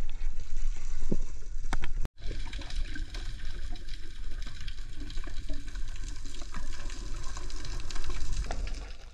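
Underwater camera sound: a steady rush of water with a deep rumble and faint crackle from bubbles as a freediver swims, cutting out for a split second about two seconds in.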